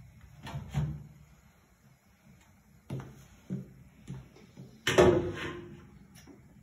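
Knocks and clatter of pots and pans being handled at a kitchen sink and stove. The loudest is a clattering knock about five seconds in that rings briefly.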